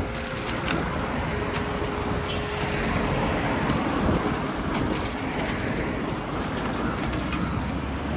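Road traffic noise: a steady rush and low rumble of passing vehicles, with a faint held tone over the first few seconds.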